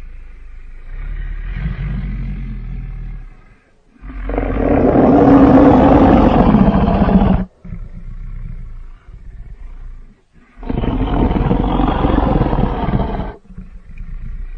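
Designed monster-dinosaur vocalisation built from layered big-cat, bear and dinosaur roars: low growling, then a loud roar about four seconds in that lasts some three seconds and cuts off sharply, more growling, and a second roar near the end that also stops abruptly.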